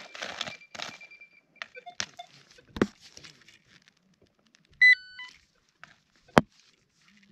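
Nokta PulseDive pinpointer probing in a stony dig hole: scraping in the dirt with a thin steady tone for the first second or so, then, about five seconds in, a short run of stepped electronic beeps as its battery runs out. Sharp knocks about three seconds in and again near the end.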